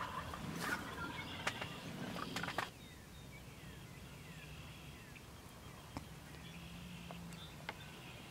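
Faint clicks and rustling handling noise for about two and a half seconds, then quiet open-field ambience with faint, distant birdsong chirps and an occasional tick.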